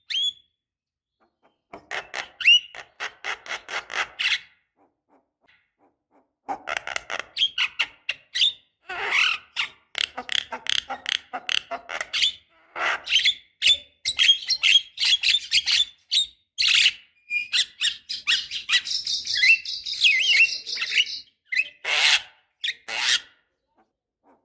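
Javan myna calling in runs of harsh, raspy clicks and squawks, pausing briefly a few seconds in, with a short whistled phrase mixed into the chatter in the second half.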